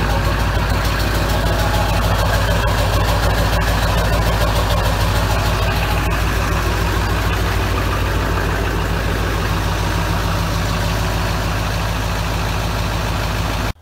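1999 Ford F-350's 7.3 L Powerstroke V8 turbo-diesel idling steadily through a 5-inch straight-pipe exhaust, cold after a below-freezing start, with a lope in the idle. The sound cuts off abruptly near the end.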